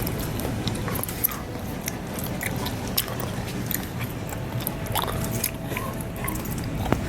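A person eating: chewing, with scattered short light clicks and taps.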